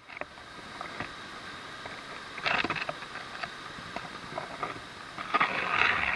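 Outdoor breeze with a steady rustling and scattered light clicks and crackles, growing louder about two and a half seconds in and again near the end.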